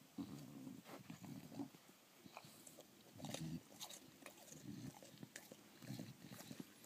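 English bulldog chewing and crunching a crisp Ritz cracker, faint and irregular, with scattered sharp crunches between bouts of chewing.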